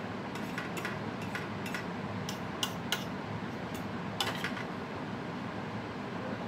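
Metal fork tapping and scraping against a ceramic bowl while eating, a string of light clicks that fall in the first four and a half seconds, over a steady background hiss.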